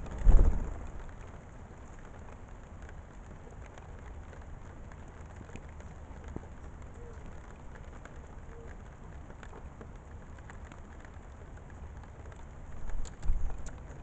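Blue jay's wingbeats: a loud, deep flutter as it flies up off the ground-feeder dish about half a second in, and two more deep flutters near the end as a jay comes back in, over a steady faint hiss.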